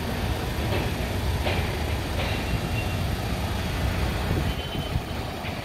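Steady low mechanical rumble with a rushing noise from an automated window-cleaning rig working its brush drums and water spray over glass, with a few faint knocks.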